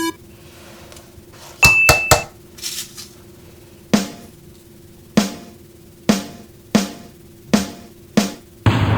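Sparse drum hits in a music track over a faint held tone. A quick cluster of sharp clicks comes about two seconds in, then six single hits with short decays, roughly one a second. A dense, noisy sound begins just before the end.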